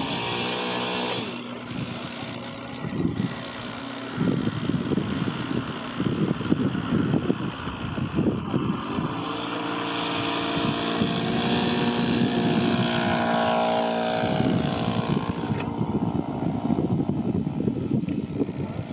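The Lazer 25cc petrol engine and propeller of a large scale Chipmunk model aircraft running. Its pitch drops about a second in, then rises and holds higher from about halfway as the model opens up for its take-off run and climbs away.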